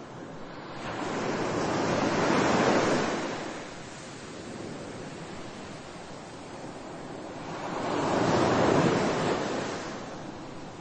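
A rushing noise over a steady hiss, swelling and fading twice, about six seconds apart.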